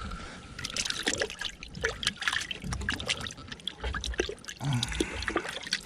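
Wet, irregular clicking and squelching as fresh squid flesh is handled and stripped for bait, with dripping water.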